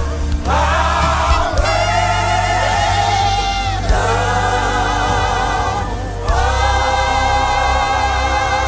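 Live gospel worship music: a choir singing long held notes with vibrato, in phrases that break off and start again every couple of seconds, over a steady low instrumental accompaniment.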